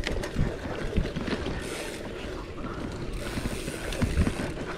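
Wind buffeting the microphone over the rumble of a bicycle rolling on a rough surface, with scattered small rattles and knocks from the bike.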